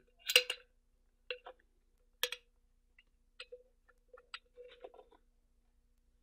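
Scattered small clicks and light scraping as a sanded plastic powder bar is slid into and worked back and forth in a Dillon 550B powder measure to check its fit.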